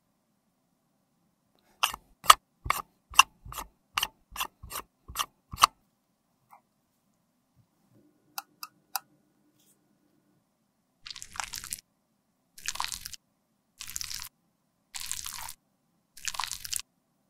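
A quick run of about ten sharp clicks, then three faint ticks. In the second half, five separate scraping strokes of a small spatula smearing soft makeup paste against a metal pan, each under a second.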